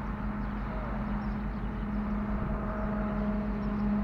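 Motorcycle engine idling steadily, a constant low hum.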